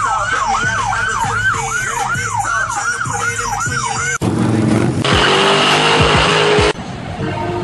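A siren yelping, a quick falling sweep repeated about two and a half times a second for some four seconds. It breaks off suddenly into a loud, rough, noisy sound that stops abruptly near the end.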